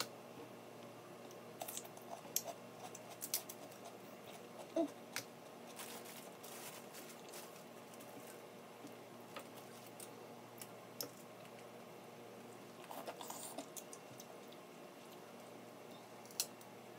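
Snow crab shells being cracked and snapped apart by hand: scattered sharp cracks and clicks, some in quick clusters, in an otherwise quiet room.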